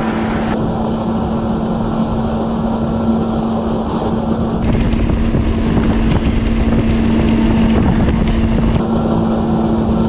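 Jet ski engine running steadily at cruising speed, with the rush of water and wind on the microphone. The sound of the spray grows louder and fuller for a few seconds in the middle.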